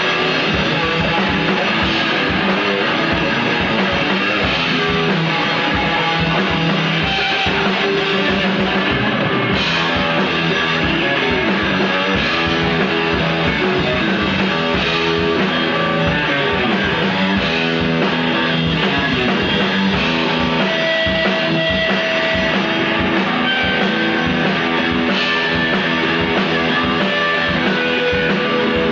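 Live rock band playing loudly, with electric guitar and a drum kit keeping a steady beat.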